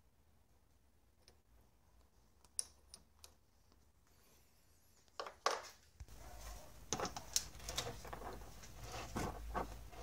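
Light metallic clicks and clinks of a machined steel tool-post base plate being handled against a metal lathe's cross slide: a few scattered clicks at first, a louder pair about five seconds in, then a busier run of clicks over a faint steady hum.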